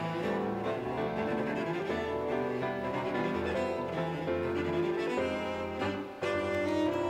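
Background music on cello and other bowed strings, with a brief dip about six seconds in before a new held note begins.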